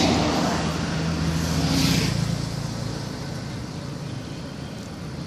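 A motor vehicle passing on the road: a low engine hum, loudest at the start with a swell of road noise about two seconds in, then fading away.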